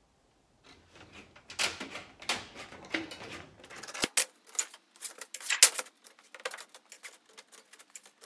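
Hand shears snipping sheet metal: a quick, irregular run of sharp metallic clicks and snips, with the thin sheet rattling, as small V notches are cut where the folds will meet. The loudest snip comes a little past the middle.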